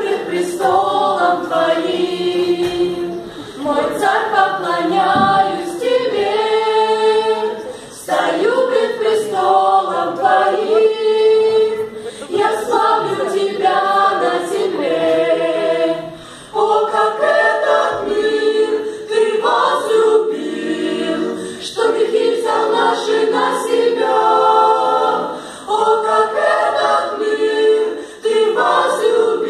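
Small mixed choir of women's and men's voices singing a cappella in parts, in sung phrases broken by short pauses for breath.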